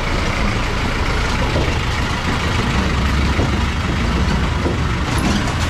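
A motor vehicle's engine running, a steady low rumble over general street noise.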